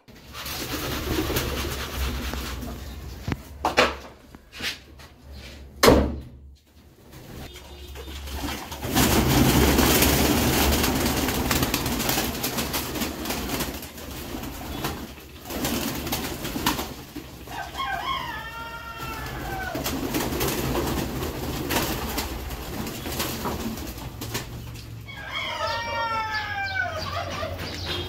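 Pigeons cooing, with wings flapping as a bird is handled. Two short runs of bird calls stand out, one a little past the middle and one near the end.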